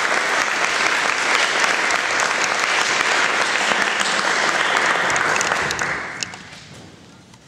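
Audience applauding, dying away about six seconds in with a few last separate claps.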